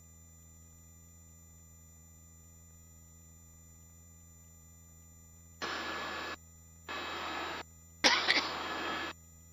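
Helicopter headset intercom: a low steady hum, then three short bursts of hiss as a microphone keys open and shut, letting in the noise of the cabin. The bursts come about a second apart, starting just after halfway through, and the last one opens with a couple of clicks.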